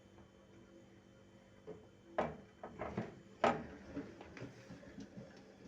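A few sharp knocks and clicks of objects being handled, the loudest about three and a half seconds in, over a faint steady hum.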